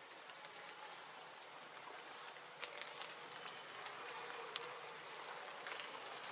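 Faint wet-forest ambience: a steady high hiss with scattered sharp ticks, the loudest about four and a half seconds in.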